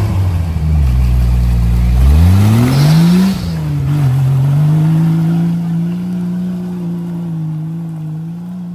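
Jeep Cherokee XJ engine working through deep mud: it revs hard, pitch rising sharply about two to three seconds in with a hiss of spinning tyres, then drops back and holds a steady pull, growing fainter as the Jeep drives away.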